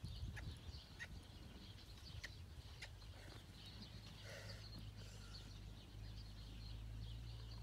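Faint hoofbeats of a mule on sandy arena footing, a few soft thuds in the first few seconds, with birds chirping.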